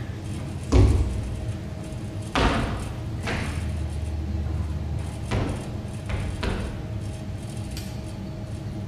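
A few scattered thumps and knocks from an actor moving on a stage platform, the loudest about a second in, each with a short echo.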